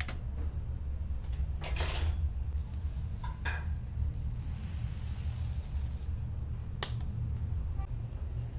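Skewered chicken wings sizzling over a charcoal grill, a steady hiss over a constant low hum. Short scraping knocks come near 2 and 3.5 seconds, and a sharp click comes near 7 seconds.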